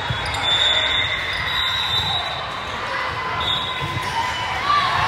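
Basketball bouncing on a gym floor during play, with short sneaker squeaks, most clearly near the end.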